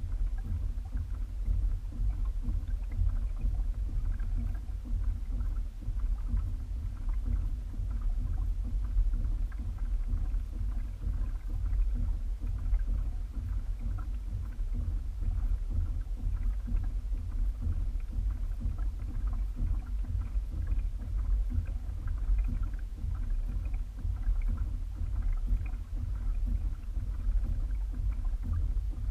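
Hobie Revolution 16 pedal kayak under way on calm water: a steady low rumble of water moving along the hull, with light wind on the microphone.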